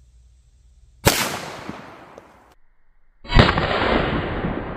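A .22 LR pistol shot about a second in, with a sharp crack and a tail that rings out for over a second. After a brief dropout, a second loud shot-like blast comes a little after three seconds, its tail dragging on longer.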